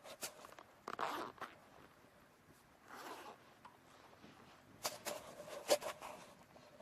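A zipper being pulled in several short rasping strokes, with the longest and loudest near the end.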